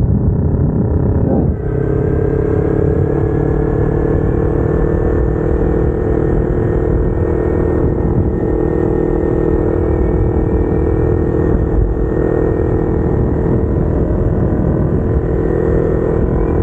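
Kawasaki Ninja 250R's parallel-twin engine running through an aftermarket header and exhaust at a fairly steady engine speed while riding, with a brief dip in loudness about a second and a half in.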